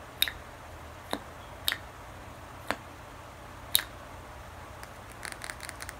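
Doe-foot applicator wand of a tube of Tarte Shape Tape foundation being worked in and out of its tube, giving sharp, sticky clicks about once a second, then a quick run of smaller clicks near the end.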